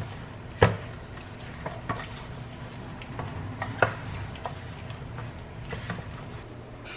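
Raw meat pieces being tossed by a gloved hand in a dry powdery coating in a stainless steel tray: soft rustling and squishing, with a few sharp knocks against the metal tray. The loudest knock comes about half a second in and another just before four seconds.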